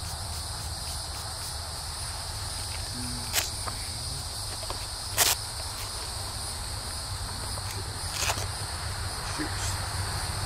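Steady, high-pitched insect chorus, several buzzing bands held at an even level. Three short sharp clicks or knocks about three and a half, five and eight seconds in; the middle one is the loudest.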